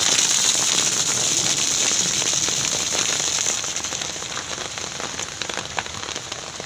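Heavy rain falling on a wet paved street, a dense patter of drops. It softens a little past halfway.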